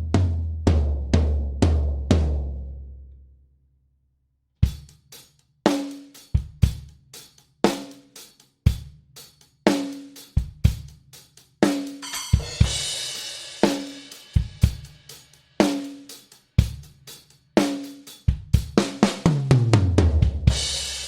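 Acoustic drum kit played with thick ProMark 2B drumsticks: a fill stepping down the toms, a short pause, then a kick-and-snare beat that brings in cymbals about halfway through, ending in a fast fill down the toms into a crash.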